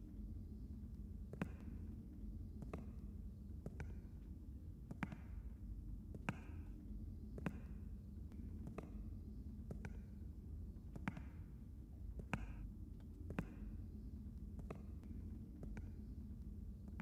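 Slow, even footsteps, about one step a second, over a low steady hum.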